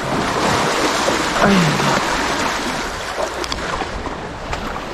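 Sea surf washing over shoreline rocks: a loud rush of water that swells in the first second and slowly eases off.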